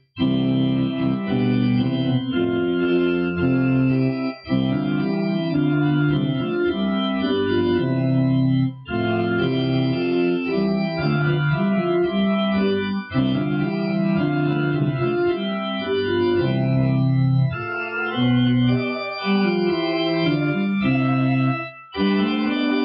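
Church organ playing a hymn tune in sustained chords, phrase by phrase, with a short break about every four seconds.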